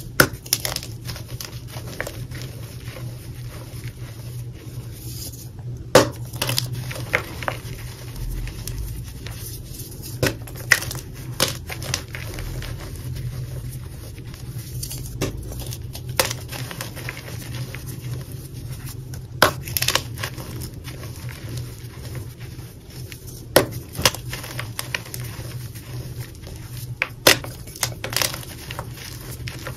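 Hands crushing soft blocks of dyed gym chalk into loose powder in a bowl: a run of sharp, irregular crunches and cracks as pieces break off, with quieter crumbling and rubbing of powder between them.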